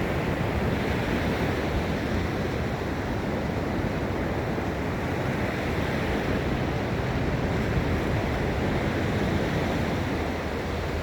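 Gulf of Mexico surf breaking and washing onto a sandy beach, a steady wash of noise.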